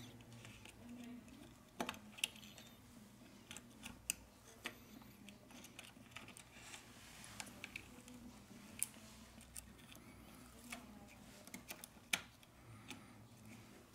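Small, sharp clicks and taps of a plastic pry tool and fingertips on a phone's logic board, pressing a flex-cable connector down into its socket. They come irregularly, a few of them louder than the rest.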